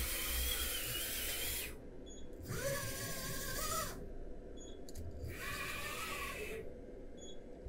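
TRAK 2op vertical machining center's axis drive motors whining in three separate moves of about one and a half seconds each, the pitch of the whine differing from move to move, as the spindle is jogged into place for setting tool four's height offset.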